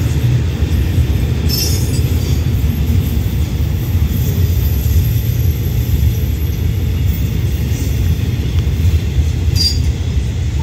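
Container wagons of a freight train rolling past close by: a loud, steady rumble of steel wheels on the rails, with brief high wheel squeals about one and a half seconds in and again near the end.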